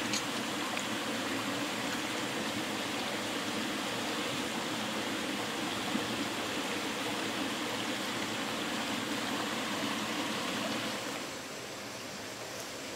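Stream water running steadily. About eleven seconds in the sound drops to a quieter, even hiss.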